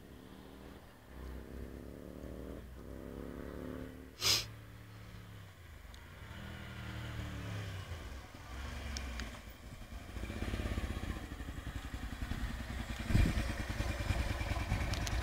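Honda Varadero 125's V-twin engine with an aftermarket Viper exhaust, the motorcycle riding toward the listener: its pitch rises and falls as it goes through the gears, and it grows louder as it comes near, running close by near the end. A brief sharp noise stands out about four seconds in.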